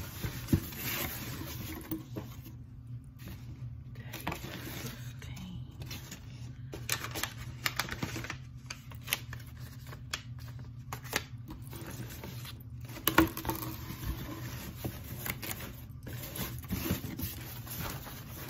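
Paper and cardboard being handled: a small kraft-paper packet rustling, crinkling and tearing open, with scattered clicks and scrapes and one sharp click about two-thirds of the way in. A steady low hum runs underneath.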